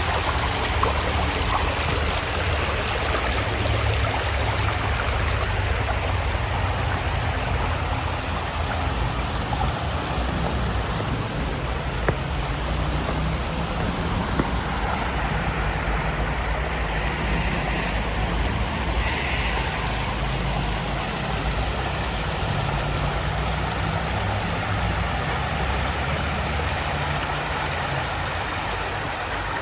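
Creek water flowing in a steady rush, with a low rumble underneath and a couple of faint clicks around the middle.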